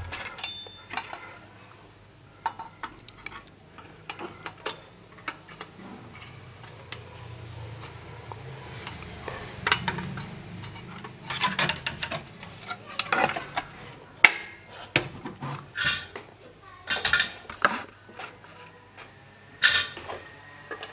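Irregular small clicks, taps and light metallic clinks of hand tools and a circuit board being handled as a replacement capacitor is fitted onto a TV power-supply board, with clusters of sharper clicks in the second half.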